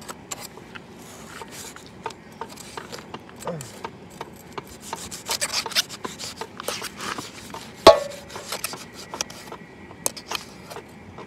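Large kitchen knife cutting and scraping through the skin and flesh of a whole pig's head: a run of short rasping strokes and clicks. About eight seconds in comes one loud, sharp knock with a brief ring after it.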